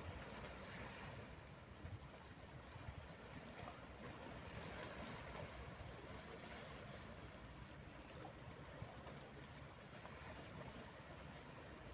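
Calm sea gently lapping and washing against boulders along a rocky shore, a faint steady wash of water that swells and eases.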